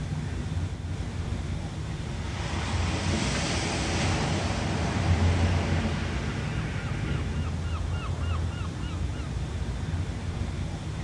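Ocean surf: a wave washes in about two seconds in, swells to its loudest mid-way and slowly recedes, over a steady low rumble of the sea.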